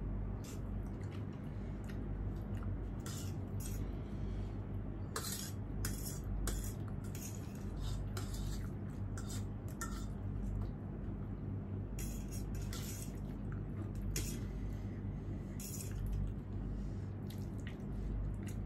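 Eating utensils clinking and scraping irregularly against a bowl of noodles, over a steady low hum.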